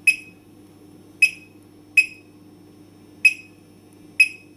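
Fire alarm control panel giving short, high electronic beeps, five of them at uneven gaps, over a faint steady hum.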